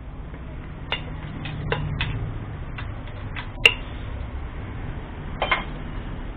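Metal spanner clinking and clicking against bolts and fittings on an old Royal Enfield Bullet engine, a few separate clicks with one sharper clink about three and a half seconds in. A low steady hum runs underneath.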